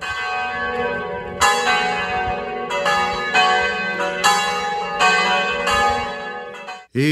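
Church bells ringing: a run of bell strokes of different pitches, roughly one a second, each left to ring on into the next. The ringing cuts off suddenly just before the end.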